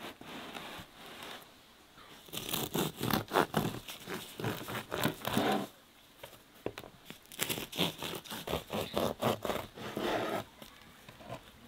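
Serrated bread knife sawing through the crusty loaf of homemade walnut bread: quick crunchy scraping strokes in two bouts, starting about two seconds in and again about seven seconds in.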